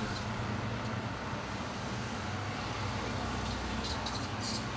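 Steady street traffic with vehicle engines running, and a few short high hisses about four seconds in.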